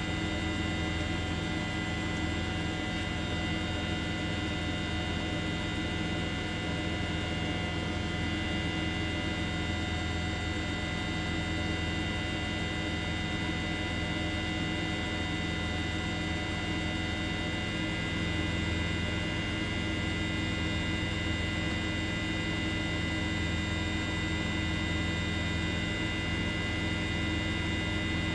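Steady, unchanging hum made of many held tones, with a strong low drone underneath and no breaks or separate events.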